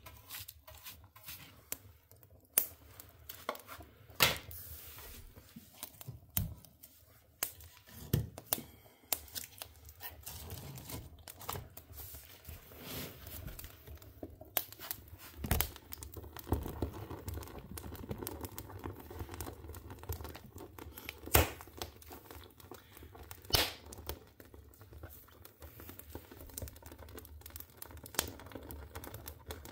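Wood fire crackling in a wood stove as kindling and split logs catch, with irregular small snaps and a few loud pops.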